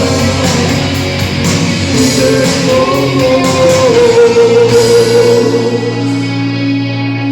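Live rock band playing, with guitar, percussion and a singing voice. The percussion hits stop about five seconds in, leaving held notes ringing as the song winds down.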